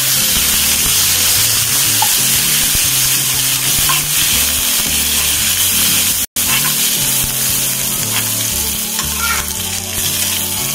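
Tempering of onion, garlic, cumin, mustard seeds, dried red and green chillies and curry leaves sizzling in hot oil in a steel kadai, stirred with a steel ladle. The sound drops out for a split second a little past the middle.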